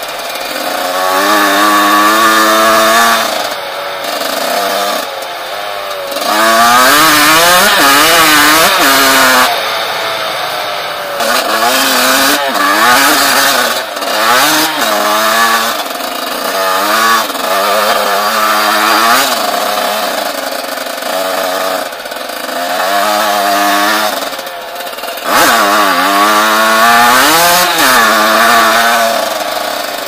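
1996 Yamaha YZ125's single-cylinder two-stroke engine ridden hard off-road, its pitch repeatedly climbing under throttle and falling back off, over and over.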